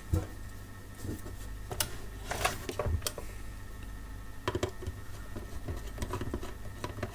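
Irregular clicks, taps and scrapes of tools and hands working on a CB radio's case to get it open, over a steady low electrical hum.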